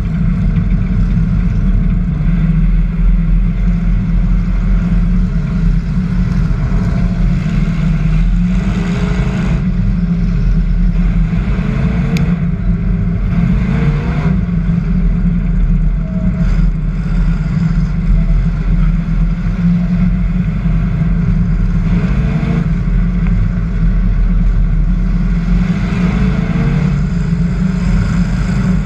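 Hobby stock race car engine running hard at racing throttle, heard from a hood-mounted camera, with the engines of the pack around it. The engine note climbs several times as the car accelerates.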